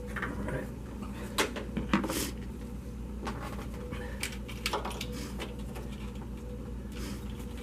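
A few sharp metal clicks and taps from hand tools and fittings on the engine bay as a new EGR pressure feedback sensor's fasteners are snugged down, over a steady low hum.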